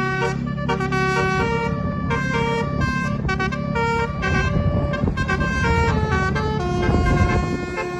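Bus's basuri (telolet) musical horn playing a tune: a run of held horn notes stepping up and down, over a steady low rumble.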